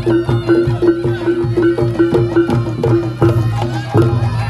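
Live, unamplified Reog Ponorogo gamelan playing a fast dance accompaniment. Drums and small gongs keep a quick, steady pulse of about three to four strokes a second, and a wavering reed-trumpet (slompret) melody runs above them.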